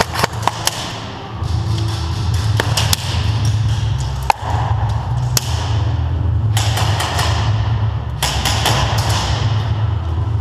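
Bass-heavy electronic music: a dense, steady low bass with sharp percussive hits and noisy sweeps over it.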